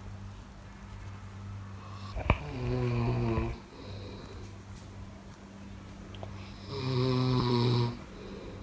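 A person snoring: two snores, each about a second long, about four seconds apart, over a faint steady low hum. A short sharp click comes just before the first snore.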